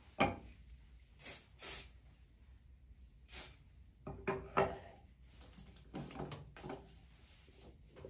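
Scattered handling sounds from styling hair with a flat iron: about ten short rustles and clacks spread unevenly through the few seconds, from hair and a hair straightener being handled.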